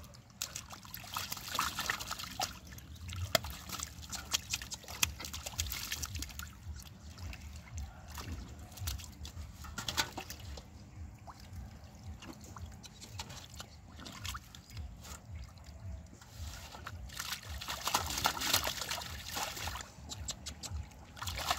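Muddy water sloshing and splashing in a shallow puddle as hands grope through it and caught fish thrash, with many short, irregular splashes and a busier spell of splashing near the end.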